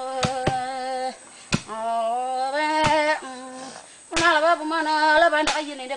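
Women chanting in long, held notes while pounding sago pith with long pole pounders; the blows land as sharp knocks at uneven intervals between and over the chant.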